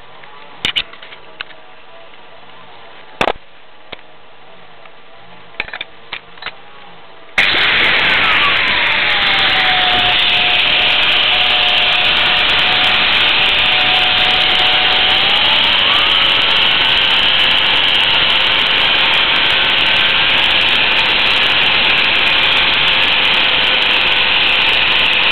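Home-made self-propelled lathe turning a steel shaft in a pillow-block bearing. A few clicks and knocks, then about seven seconds in it starts suddenly and runs loudly with a hiss and a whine that falls, holds steady, then rises again.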